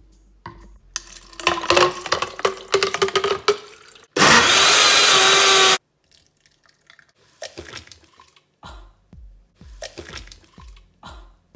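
Ice cubes clatter as iced coffee is tipped into a blender jug. The blender then runs at full speed for about a second and a half and cuts off sharply. After it come soft, irregular glugs and splashes as the thick blended coffee is poured into a glass.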